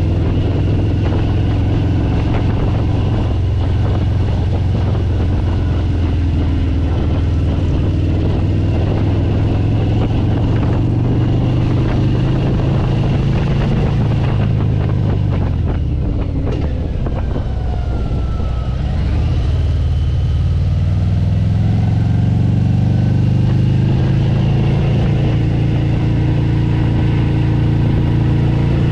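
Vehicle engine running under way, with wind noise on the microphone. The engine eases off a little past the middle, then builds again and runs at a higher pitch toward the end.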